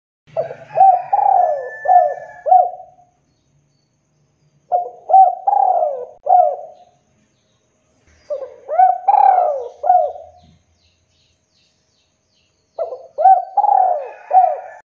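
Spotted dove cooing: four phrases of several short coos each, spaced a few seconds apart, the last phrase cut off at the end.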